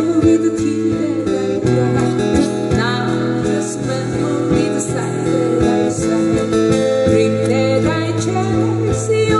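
Several acoustic guitars strumming and picking chords together in a country-folk song, with a voice singing over them.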